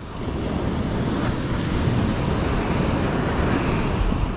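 Ocean surf breaking and washing up a sandy beach, with wind buffeting the microphone. It swells louder right at the start and eases off near the end.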